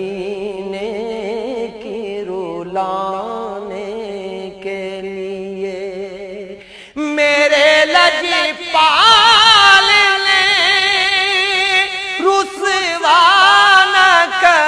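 A man singing an Urdu naat in long drawn-out melismatic phrases, without words clear enough to make out. For the first seven seconds the line is low and held; then the voice leaps higher and louder into fast wavering ornaments.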